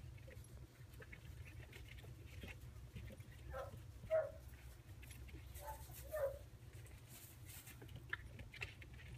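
Puppies yipping: two pairs of short, high yips, one pair about four seconds in and the other about six seconds in, over a steady low rumble.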